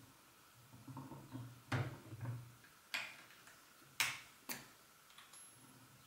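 Four sharp clicks with softer knocks between, faint overall: hands working the clamps and adjusting knobs of a Wild-Heerbrugg T2 theodolite mounted on a dividing head.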